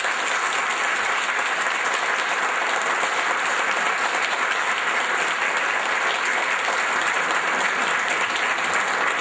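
Audience applause: many people clapping in a dense, steady patter.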